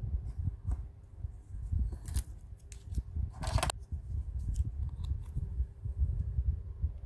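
Plastic pieces of a toy doctor playset being handled: scattered light clicks and taps over a low handling rumble, with one short, sharper scraping rustle about three and a half seconds in.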